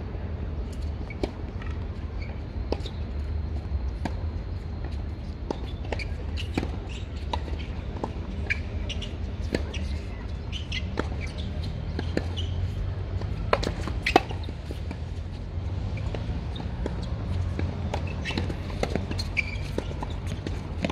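Tennis balls being struck and bouncing on a hard court: short sharp pops at irregular intervals, the loudest about 14 seconds in, over a steady low rumble.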